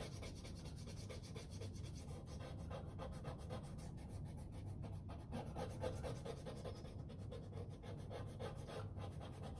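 Pencil eraser rubbing back and forth on drawing paper in quick, faint, repeated strokes, erasing light guide lines.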